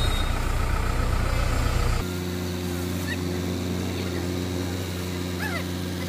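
Diesel engine of a Bull backhoe loader running; about two seconds in the sound changes abruptly from a heavier engine noise to a steadier, slightly quieter engine drone with a clear hum. A couple of short high calls sound near the end.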